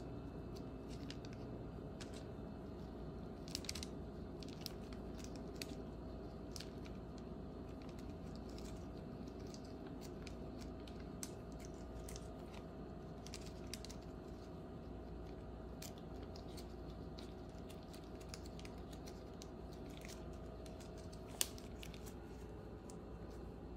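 Scattered light clicks and taps over a steady hum. A sharp click comes near the end, and a faint steady tone stops with it.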